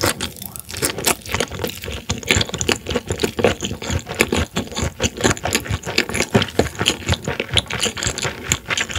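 Close-miked chewing of a horse mackerel nigiri, raw fish over rice, making a fast, unbroken run of small mouth clicks and smacks.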